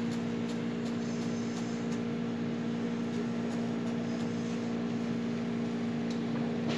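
Steady machine hum of kitchen equipment. In the first two seconds there are faint, light, regular taps, about three a second, from a chef's knife chopping herbs on a plastic cutting board.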